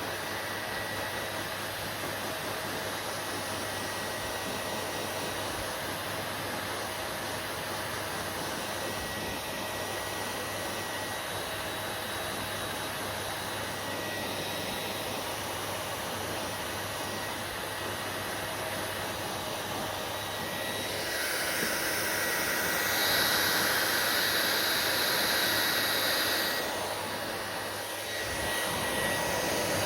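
Hair dryer blowing with a steady whoosh and a faint whine. It grows louder about two-thirds of the way through, drops back briefly near the end, then rises again.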